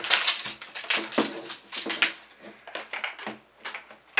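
Plastic wrapping on OOSH Potions toy bottles being peeled and torn off by hand: a run of quick, irregular crinkles and crackles.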